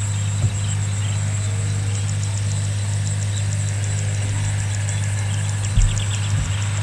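A steady low machine hum, like an engine idling, runs throughout. A faint, rapid, regular high ticking joins it about two seconds in, and a couple of dull low bumps come near the start and near the end.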